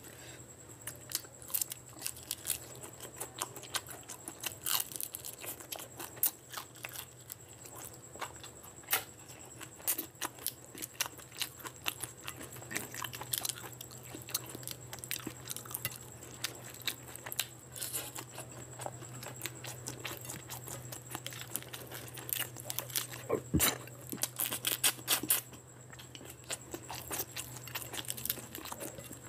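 Close-miked eating sounds: fingers squishing and mixing rice with curry gravy on a plate, along with wet chewing, making a steady stream of short smacks and clicks over a faint steady hum.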